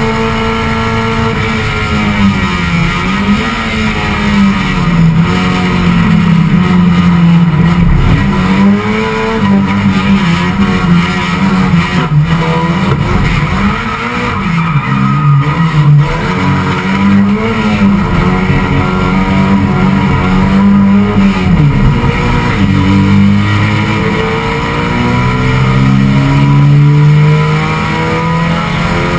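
Race car engine heard from inside the stripped cockpit, revs repeatedly climbing and dropping through gear changes and corners, with a sharp knock about twelve seconds in.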